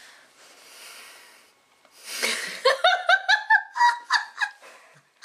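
A woman bursting into laughter about two seconds in: a breathy gasp, then a quick run of high-pitched 'ha' sounds that dies away near the end. There is faint breathing before it.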